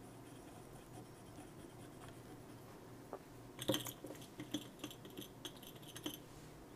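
Faint scratching and light taps of a tool on a laptop logic board as its corroded solder pads are cleaned: a run of about seven short scrapes starting about halfway through, the first the loudest.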